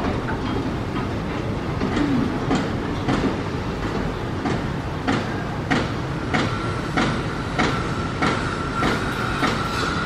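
A steady mechanical rumble with a regular clacking, about three clacks every two seconds, loudest in the second half. A steady high whine joins in about halfway through.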